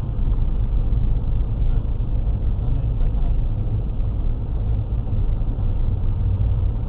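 Steady low rumble of a car on the move, engine and road noise picked up by a dashcam inside the cabin.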